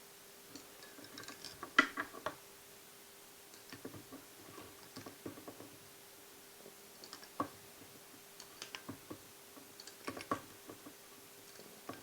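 Faint, scattered clicks and ticks of hands and small tools working at a fly-tying vise while the floss body is finished off, over a faint steady hum.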